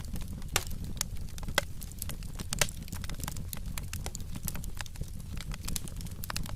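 Fire in a fireplace crackling: irregular sharp pops and snaps, a few louder than the rest, over a steady low rumble of the flames.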